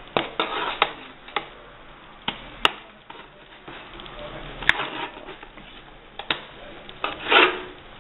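Kitchen utensils knocking and clinking against a baking pan and dishes: scattered sharp taps and clicks, two of them especially crisp, with a short scraping rustle near the end.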